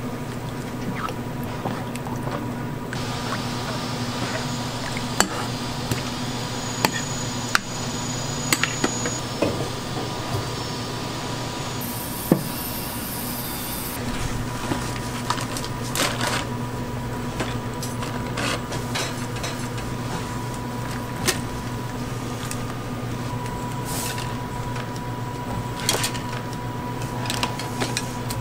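Street-food stall kitchen sounds: scattered knocks and clatter of utensils and pans over a steady electrical hum, with a short hiss about twelve seconds in.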